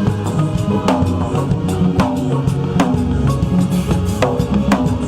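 Music with a steady drum-kit beat, bass drum and snare under sustained keyboard-like chords.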